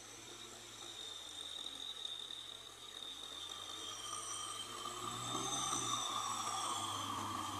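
Kubota MT6040 tractor's diesel engine running under load as it pulls a rotary tiller through flooded mud, with a steady high whine over it. The sound grows louder about five seconds in as the tractor draws nearer.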